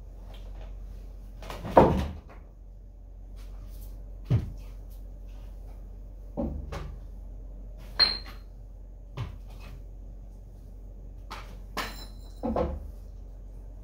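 A series of separate knocks and clatters in a small room, about seven in all, spaced one to three seconds apart. One, near the middle, has a brief high ring. A steady low hum runs underneath.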